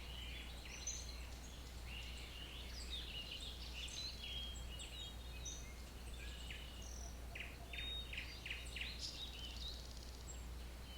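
Several birds singing and calling, a busy mix of short chirps and whistles, with a quick run of repeated notes about three-quarters of the way through, over a steady low hum.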